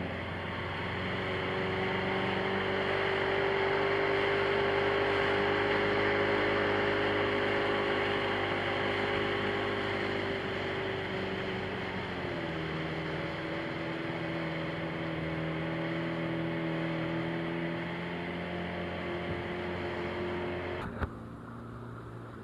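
Small fishing boat's outboard motor running steadily under way, with wind and water rush. The engine note eases slightly lower about halfway through. About a second before the end the sound drops off suddenly to something much fainter.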